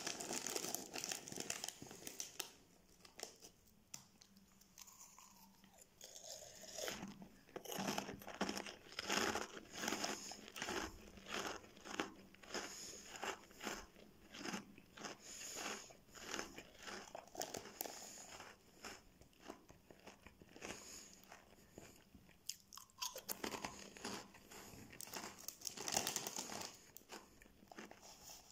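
Crunching and chewing of crispy, salty Fonzies corn-and-cheese snack sticks in the mouth: a long run of short crunches, about two or three a second.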